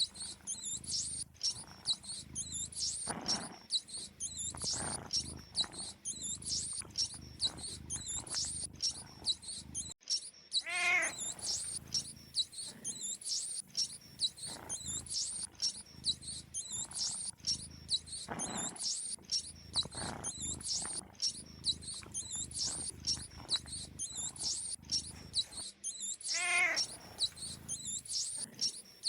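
Rapid high-pitched mouse squeaks that run on without a break. Twice, about a third of the way in and again near the end, a cat meows with a falling, wavering call about a second long.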